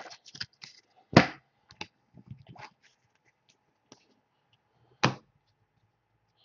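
Trading cards being handled and set down on a table: a few sharp taps with light rustling between, the loudest tap about a second in and another about five seconds in.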